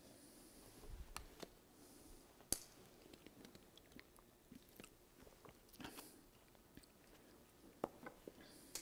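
Near silence broken by faint scattered clicks and mouth noises: sips and swallows from a plastic water bottle, picked up close by a headset microphone. The sharpest click comes about two and a half seconds in.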